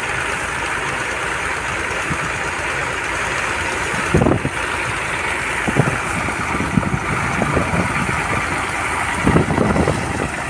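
Threshing machine running steadily with a dense whirring rush while dry sesame stalks are fed into it. Several louder low thumps come through, about four seconds in, around six and seven, and again near the end.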